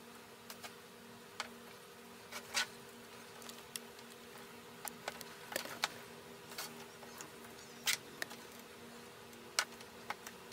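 Spoon stirring glue-and-detergent slime in a plastic tub, with irregular clicks and light knocks as it scrapes and taps the container sides. A steady low hum runs underneath.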